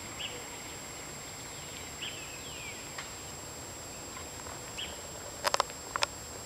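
Faint, short chirps of small birds, one a quick falling note, over a quiet open-air background. About a second before the end come three short, loud, sharp sounds in quick succession.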